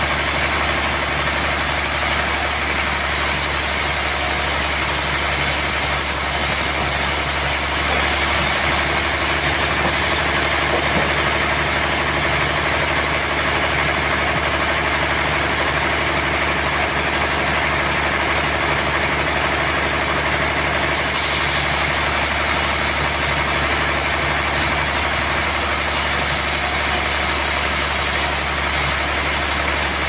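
Band sawmill running steadily: the drive motor's even hum under the hiss of the band blade sawing a trembesi (rain tree) slab. The highest part of the hiss thins out about eight seconds in and comes back about twenty-one seconds in.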